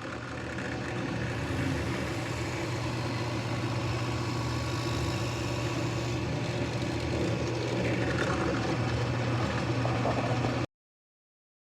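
A motor or engine running steadily with a low hum. It fades in and then cuts off suddenly.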